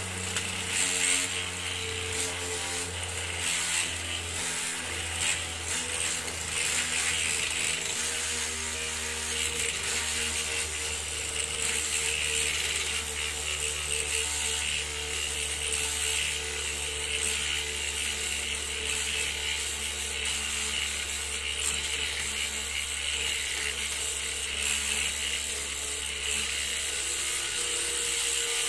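Control-moment gyroscope's 730-gram aluminium flywheel rotor, driven by a 550 DC motor, spinning at about 5,000 RPM: a steady mechanical whir over a low hum, while the gimbal motor holds the two-wheeler balanced.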